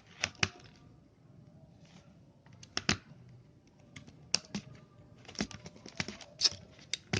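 Irregular sharp plastic clicks and taps with short rustles, from a wireless keyboard and mouse being handled, about a dozen clicks spread unevenly.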